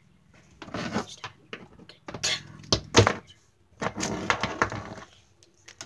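Plastic wrestling action figures knocking and clattering against a toy ring in several bursts, with a sharp knock about three seconds in.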